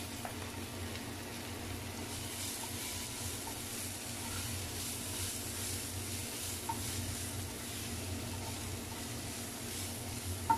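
Chopped onions, green chillies and ginger-garlic paste sizzling steadily in oil in a frying pan, stirred with a spatula that scrapes softly across the pan. One short sharp click near the end.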